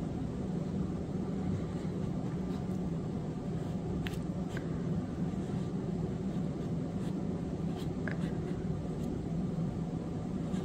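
Steady low background hum in a small room, with a few faint light ticks about four and eight seconds in.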